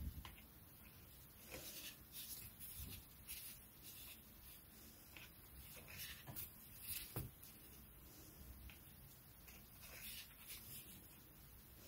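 Faint, irregular rustling and small ticks of waxed polyester cord being pulled and tightened into knots, with fingers brushing the cloth-covered work surface.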